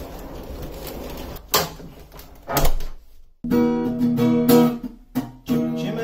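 Acoustic guitar being strummed, a few separate strokes at first, then after a brief silent gap about three seconds in, steady strummed chords ringing.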